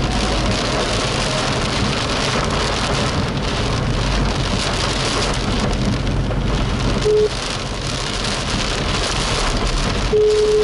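Heavy rain on a moving car's roof and windshield, heard from inside the cabin as a steady noise. A short steady beep sounds about seven seconds in and a longer one near the end.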